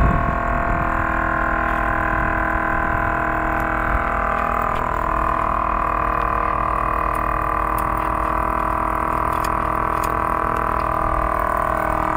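Custom chopper's big V-twin engine idling steadily at a fixed pitch, with a few light ticks.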